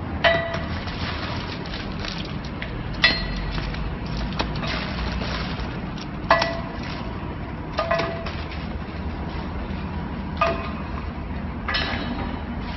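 Block and tablet counting and packing machine running with a steady hum. About six sharp metallic clinks ring out briefly at uneven intervals of one to three seconds.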